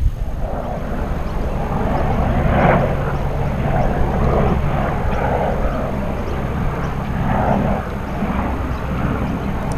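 Wind buffeting the microphone: a steady low rumble that swells and eases in gusts.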